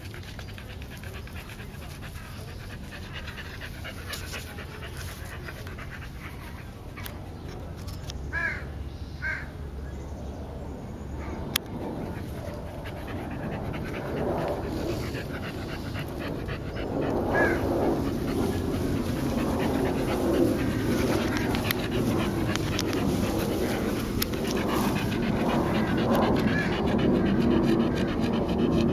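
Olde Boston Bulldogges panting hard after play, a quick steady rhythm of breaths that grows louder in the second half.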